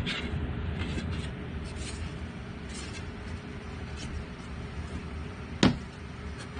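Wooden instrument frame and a thin poplar board handled on a workbench: a few light wooden ticks, then one sharp wooden knock about five and a half seconds in as the frame is set down on the board, over a steady low hum.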